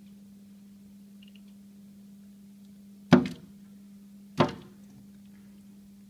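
A bird striking the window glass with its beak: two sharp knocks about a second and a half apart, over a steady low hum.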